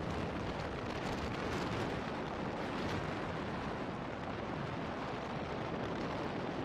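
Steady rush of wind on the microphone of a moving motorcycle, with road noise and no clear engine note.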